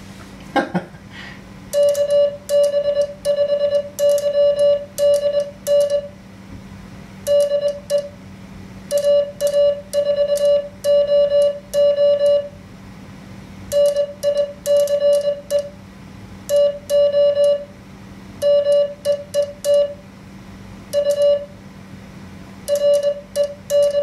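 Morse code sidetone, a pitched beep near 600 Hz from an MFJ-493 memory keyer, as CW is sent on a paddle in dots and dashes grouped into characters with short pauses between words; it starts about two seconds in. The code spells a reply in a practice QSO: "KB5YDN DE AA4OO NICE TO MEET U RENEE". A faint steady hum lies underneath.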